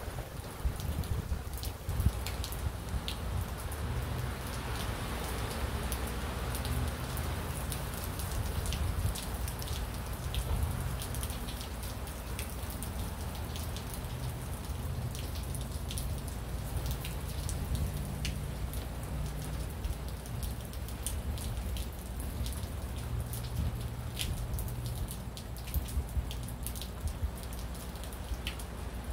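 Rain falling in a storm, with close drops striking in sharp ticks over a steady low rumble.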